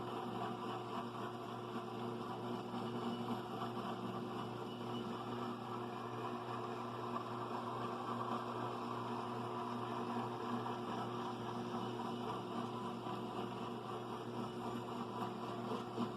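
Electric power tool running steadily, a constant motor hum with a rough abrasive hiss over it, as the scarred steel vise handle is cleaned up.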